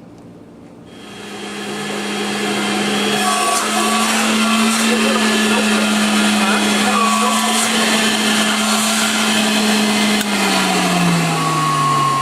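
Vintage vacuum cleaner switched on about a second in, its motor running up to speed with a loud steady whine, then switched off near the end and winding down, the pitch falling. The whine is loud enough to hurt the ears, but its owner says the bearing is fine.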